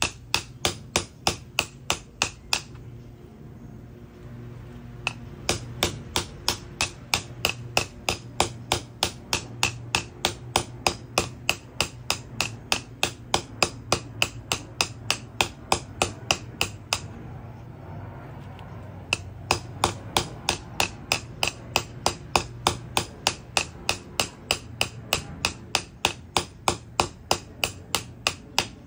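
Ball-peen hammer tapping steadily on the metal rim of an AC compressor clutch, about three light strikes a second, driving the clutch back onto the compressor's nose. The tapping stops twice for a couple of seconds.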